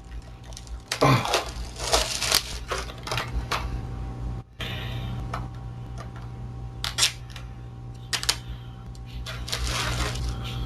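Packaging being handled and opened: irregular crinkling, tearing and clicks of the mailer and wrap, over a steady low hum.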